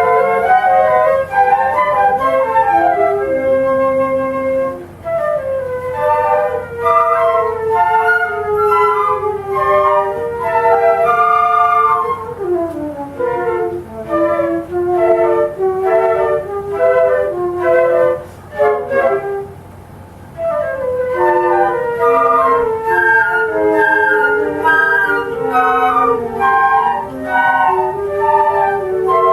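Flute orchestra playing a choro arrangement, several flute lines moving in quick runs of notes together. The playing thins out briefly about five seconds in and again for a moment past the middle before the full ensemble returns.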